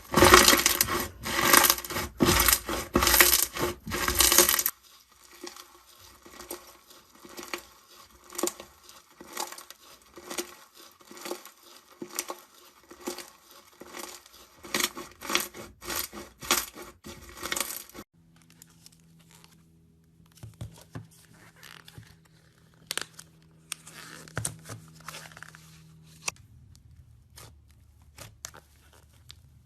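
Slime being pressed and handled, making dense crackling, popping clicks, loud for the first few seconds and then quieter and more scattered. Over the last third only occasional clicks remain, over a faint steady hum.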